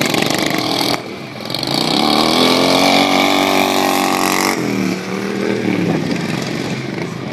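Racing lawn mower engine revving: the pitch climbs about a second and a half in, holds high for a few seconds, then drops off sharply and winds down.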